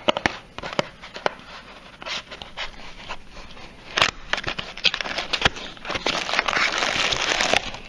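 Packaging of a USB mini vacuum cleaner being opened by hand: scattered clicks and rustles, then a denser run of crinkling and tearing over the last two seconds or so.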